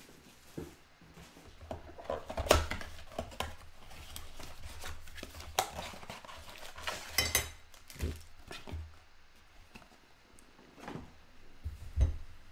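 A cardboard trading-card blaster box being opened by hand, with its foil-wrapped packs taken out and set down on the table: scattered taps and knocks with short bursts of wrapper crinkle, the loudest knocks about two and a half seconds in and near the end.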